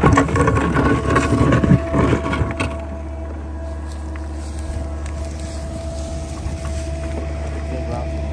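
Small Sany excavator's diesel engine running steadily with a steady whine over its hum. For the first couple of seconds the bucket scrapes and crackles through soil and roots, then only the engine carries on.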